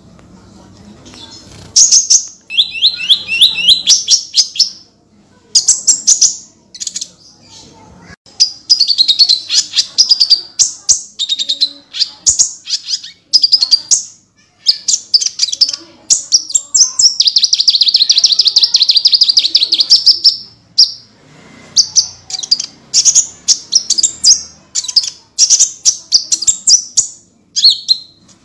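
Kolibri ninja, a sunbird, singing loudly: rapid-fire bursts of high, fast-repeated chirping notes, each burst lasting a second or more with short pauses between, the 'tembakan' phrases that bird keepers play as tutor song.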